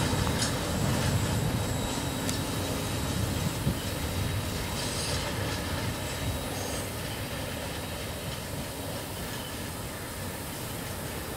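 Double-stack intermodal freight train rolling slowly by: a steady rumble and clatter of steel wheels on the rails, with a few sharp clicks and a faint high wheel squeal. It fades gradually as the cars move away.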